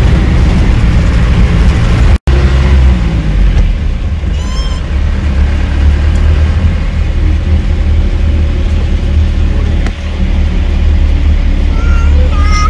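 A motor vehicle running with a steady heavy low rumble. The sound cuts out for an instant about two seconds in. A few short high whistling tones come near the middle and again near the end.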